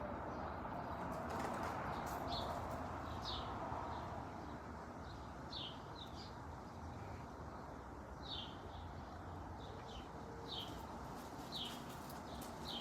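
A bird giving short, high chirps, each a quick downward slide, repeated roughly once a second over steady outdoor background noise.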